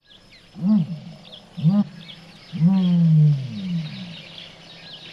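Male common ostrich booming: two short, deep hoots followed by one long boom that slides down in pitch. Faint high chirps in the background.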